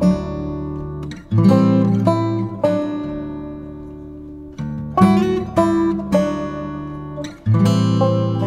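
Acoustic guitar music: strummed chords that strike in clusters and ring out, fading between strums.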